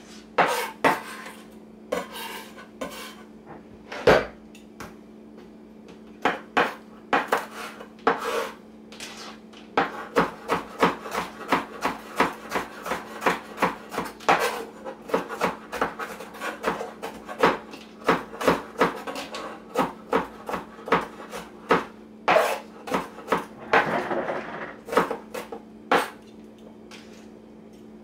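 Knife chopping green and red bell peppers: sharp knocks of the blade, irregular, with quick runs of several strokes a second. A steady low hum runs underneath.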